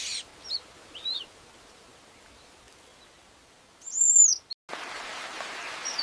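Bird calls: two short high chirps, then one loud, high, arched call a little after four seconds. After a sudden cut, a steady hiss of forest ambience follows, with one more short chirp near the end.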